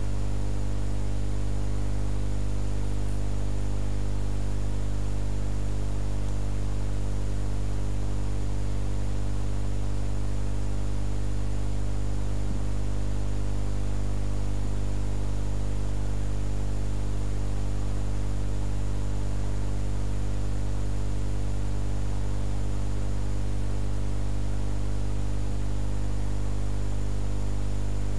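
Steady, loud electrical mains hum with a layer of hiss, unchanging throughout: the recording's own noise floor.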